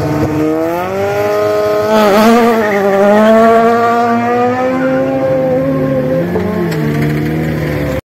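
Renault Clio rally car's four-cylinder engine held at high revs on the start line, then launching: revs climb, dip briefly at a gear change about two seconds in, climb again, then sink slowly as the car pulls away.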